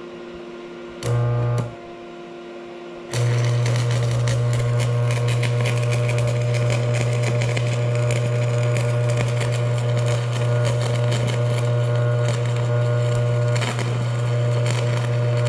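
Stick-welding arc from a Vulcan Commander 225 transformer welder on DC positive: a short strike about a second in that does not hold, then the arc catches about three seconds in and burns steadily, crackling over the welder's loud buzz.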